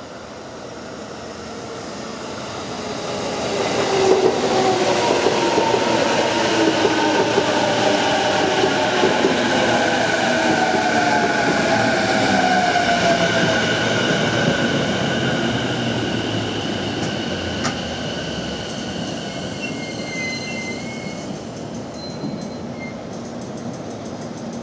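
JR East E233 series electric commuter train approaching and passing, with a rumble and clatter from the wheels and a whine falling in pitch. It grows loud about three seconds in and fades away in the second half.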